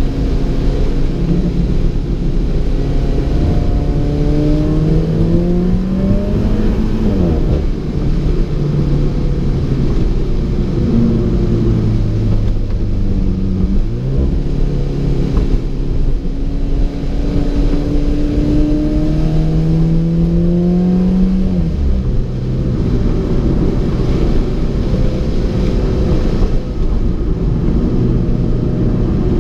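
Alfa Romeo 4C's turbocharged four-cylinder engine accelerating on the road. Its note rises in pitch and drops sharply at each gear change, clearly twice, over a steady rumble of tyres on a wet road.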